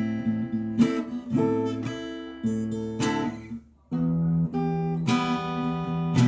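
Acoustic guitar played fingerstyle with percussive hits on the body and strings that come through as sharp knocks among the plucked notes. A little past halfway the sound is cut off for a moment, then the playing resumes.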